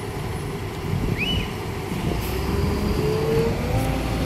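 Sumitomo hydraulic excavator's diesel engine running steadily as the machine works, with a thin tone that slowly rises in pitch through the second half. A short high chirp comes about a second in.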